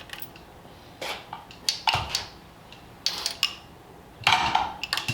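A handful of sharp metal clanks and knocks, about a second apart, some with a brief ringing, from steel parts and tools while an engine is worked into place against its transmission.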